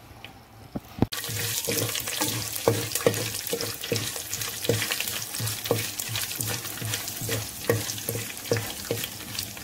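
Hot oil sizzling and crackling in a clay pot as a tempering of mustard seeds, urad and chana dal, dried red chillies and curry leaves fries. A spatula stirs it, knocking and scraping against the pot about twice a second. The sizzle jumps up suddenly about a second in.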